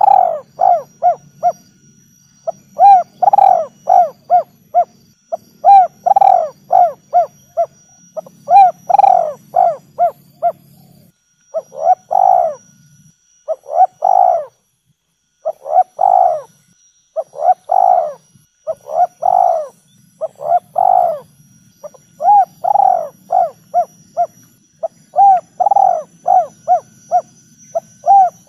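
Spotted dove cooing over and over, in phrases of several short coo notes with brief pauses between phrases.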